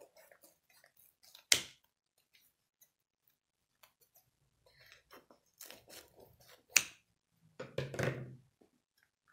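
Crisp, flaky baked pastry crust crunching and crackling as it is cut with kitchen scissors. Two sharp snaps, one about a second and a half in and one near seven seconds, then a longer crackly rustle as the layered pastry is pulled apart.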